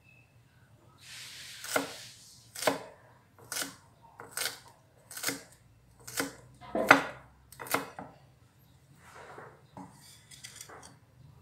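Eight sharp kitchen knocks, about one a second, from a utensil striking a hard surface in food preparation, with a short hiss just before the first and a few fainter clicks near the end.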